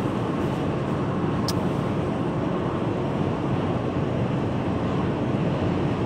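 Steady road noise inside a car cruising on a motorway, mostly a low tyre-and-engine drone. A single short click comes about a second and a half in.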